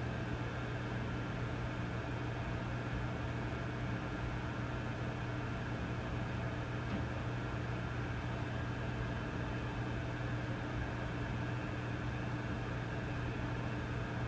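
Vintage tube amplifier idling with a steady low mains hum and a constant hiss of static, unchanging throughout.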